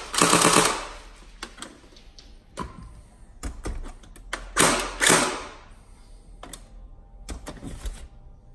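Tokyo Marui AA12 electric airsoft shotgun, fitted with an M90 upgrade spring and a Nuprol high-torque motor, firing a short full-auto burst, a rapid mechanical chatter that cuts off within the first second. Then scattered clicks, knocks and clatter as the gun is handled and laid down on the bench, two of them louder a little after halfway.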